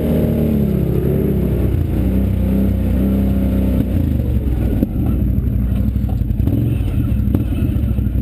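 ATV engine revving hard under load as it pulls a stuck ATV out of soft mud on a tow rope, its pitch rising and falling, with a couple of sharp clacks near the end.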